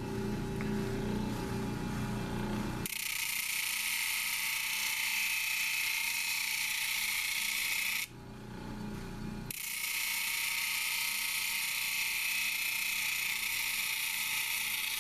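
Labradorite stone held against a spinning 100-grit flat lap disc, grinding a bevel on its edge: a steady hissing grind. After about three seconds of low hum the grind begins, breaks off for about a second and a half a little past the middle as the stone is lifted, then resumes.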